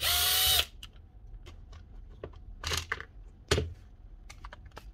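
A small cordless power driver runs in a short burst of about half a second, then comes a string of light clicks and a couple of louder knocks from the tool and plastic parts being handled.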